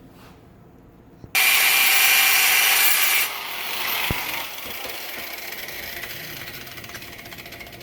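Angle grinder switched on, running loud and steady with a high whine for about two seconds, then switched off and spinning down, fading slowly. A single sharp click comes as it winds down.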